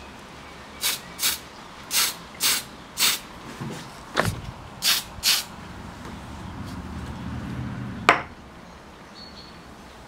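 Aerosol spray can of acrylic primer let off in about eight short puffs of hiss, each a fraction of a second. Then a low rumble and a single sharp click.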